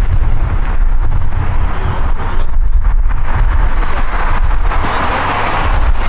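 Strong gusting wind buffeting the microphone: a heavy low rumble that rises and falls with the gusts, with a rushing swell about five seconds in.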